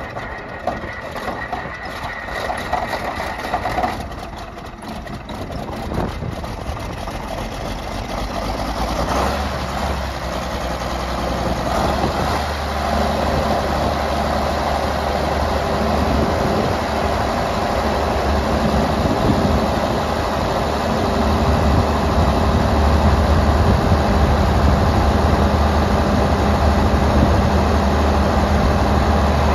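John Deere 4430's six-cylinder diesel engine being started, catching about nine seconds in, then running steadily and growing gradually louder.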